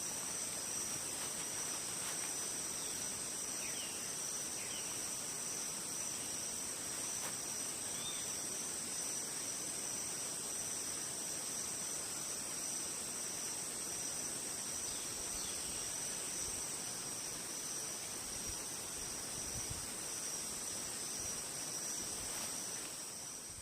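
Steady chorus of insects, a continuous high-pitched trill held on two constant pitches, with a few faint bird chirps now and then.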